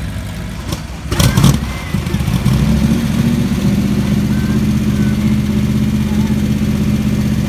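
Cobra-style roadster's engine catching with a sharp rev about a second in, then idling steadily with a low rumble.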